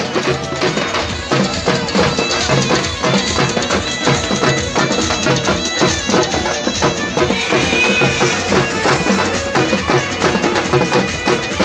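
Large frame drums beaten in a fast, even rhythm, with a steady droning tone under the drumming.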